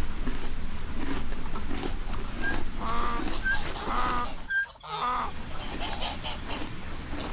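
Farm animals calling: a string of short pitched calls over a busy barnyard background, broken by a brief drop in sound a little past halfway.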